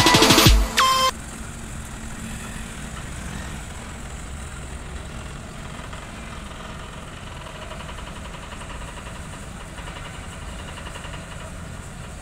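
Loud background music that cuts off about a second in, followed by a heavy truck's diesel engine idling steadily, its sound mostly low-pitched.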